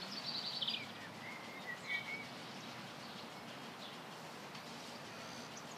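Faint birdsong: a quick run of high chirps in the first second, then a few short whistled notes, over a steady background hiss.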